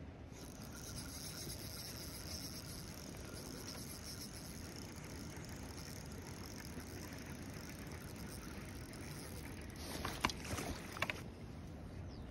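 Shimano Vanquish C2000S spinning reel being cranked on a steady retrieve, a faint high whir over a low rumble of wind and open water. A few sharp clicks and knocks about ten seconds in.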